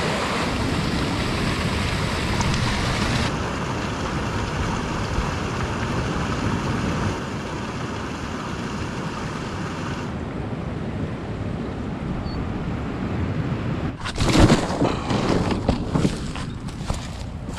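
Ocean surf washing onto the beach, heard as a steady rushing noise, with wind. From about fourteen seconds in, loud irregular buffeting and knocks hit the microphone.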